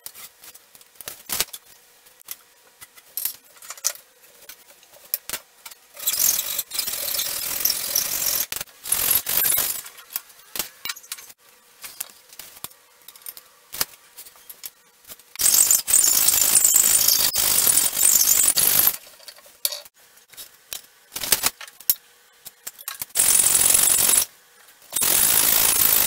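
Light clicks and rattles of a tape measure and wooden timber being handled, then several stretches of hand sawing: a hacksaw cutting square wooden timber held in a wooden miter box, the longest stretch about three and a half seconds.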